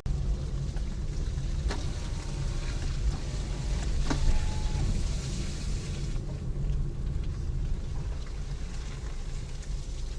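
Car driving: a steady low rumble of road and engine noise, with two sharp knocks about two and four seconds in.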